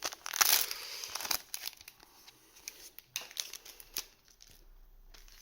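Foil trading-card booster pack wrappers crinkling and rustling as they are handled, densest in the first second and a half, then fainter scattered crinkles.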